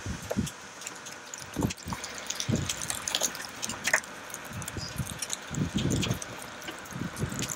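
Wind buffeting the camera microphone in irregular low gusts, over a steady rushing noise, with scattered light ticks and rustles.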